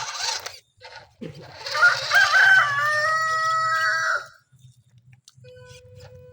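A rooster crowing once, a single long call of about three seconds that starts about a second in, with a few stepped notes before a long held final note.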